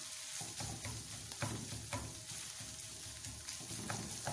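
Beef mince sizzling as it fries in a pan on a gas burner, stirred with a spatula that scrapes and knocks against the pan about once or twice a second.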